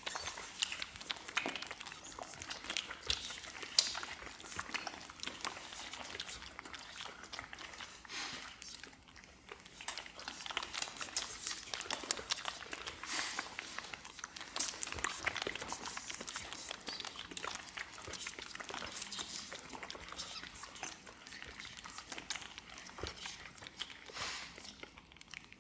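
Many people making wet lip- and tongue-smacking clicks at once, a dense, irregular crackle of small clicks that cuts off suddenly just before the end.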